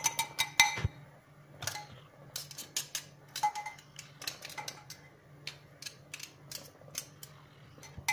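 A spoon clinking and scraping against a glass food-processor bowl while chopped onions are scooped out: irregular sharp taps, some ringing briefly, over a faint steady low hum.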